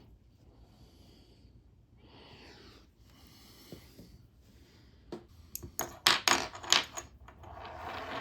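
Small metal watchmaker's tools and watch parts clicking and tapping on the bench, in a quick run of sharp ticks after a few seconds of faint rustling.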